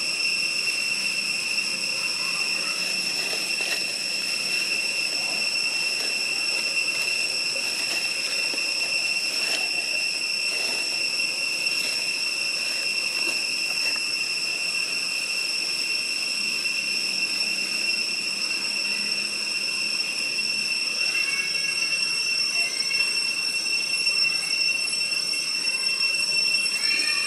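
Cicadas droning in a steady, high-pitched whine that holds the same pitch throughout. A few faint chirps come in near the end.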